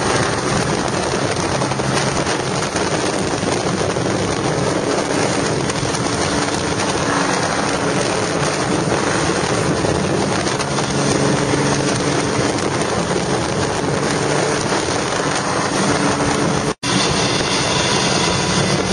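Bentley 8 Litre's straight-six engine running under way: a steady low drone under a loud, even rush of noise. The sound cuts out for an instant near the end.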